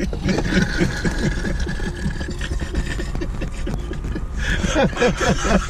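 Two men laughing hard, in quick repeated bursts inside a car.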